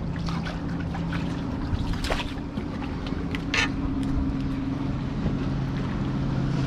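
A steady low engine drone, its pitch dropping slightly about halfway through, with a few short clicks and taps from unhooking a fish.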